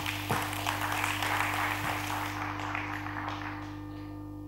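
Audience applauding, dying away about three seconds in, over a steady low hum.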